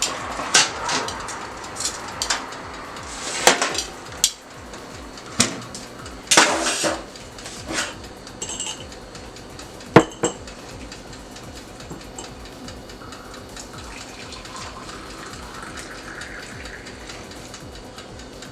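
Kitchen utensils and dishes clinking and clattering, with scattered knocks over the first ten seconds or so, then only a steady background hiss.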